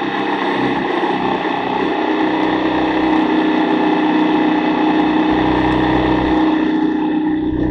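BMW GS boxer-twin motorcycle engines running at steady track speed with heavy wind rush, heard from a camera on the back of the leading bike. The wind noise eases near the end.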